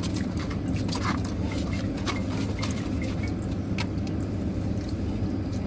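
Steady low hum of a car engine idling, with a few light clicks and rustles scattered over it.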